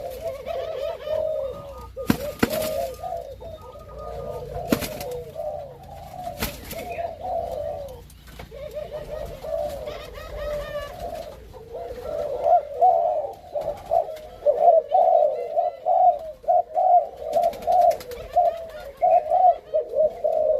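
Spotted dove cooing over and over, a dense run of low rolling coos that grows louder in the second half: the courtship cooing of a newly paired breeding bird. Several sharp clicks or knocks come in between, a few near the start and a quick cluster near the end.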